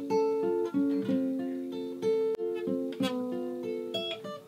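Guitar picked note by note, a flowing run of single plucked notes that ring on over one another.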